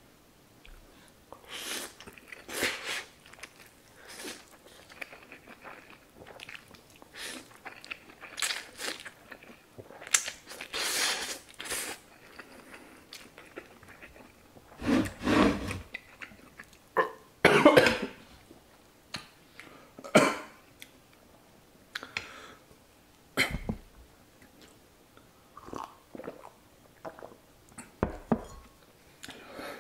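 Close-up eating sounds of a person chewing extra-spicy fire-chicken instant noodles, with wet mouth noises coming irregularly. About halfway through come two loud coughs, the loudest sounds here.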